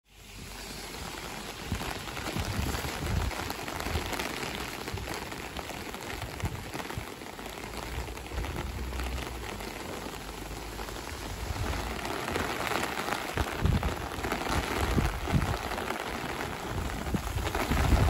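Heavy rain falling in a strong wind, an even hiss of rain with irregular low gusts buffeting the microphone.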